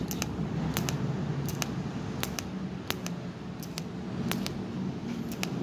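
TIG welding arc on thin steel tube: a steady hiss over a low hum, with a short sharp tick about every 0.7 seconds.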